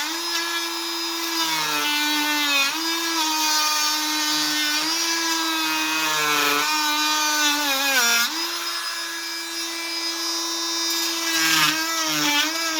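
Fein MultiMaster 500 cordless oscillating multi-tool running under load with a Bosch blade, a steady high whine whose pitch sags and recovers several times as the blade is pushed into the work.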